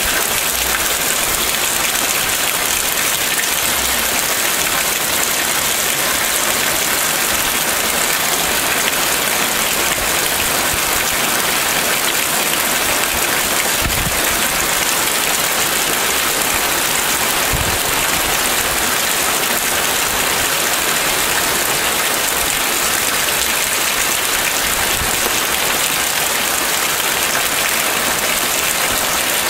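Steady rain falling on an asphalt road and a puddle: an even, unbroken hiss of drops.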